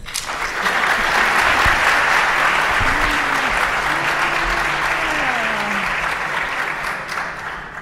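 Audience applause that starts at once, holds steady and dies away near the end, with a faint voice heard through it about halfway.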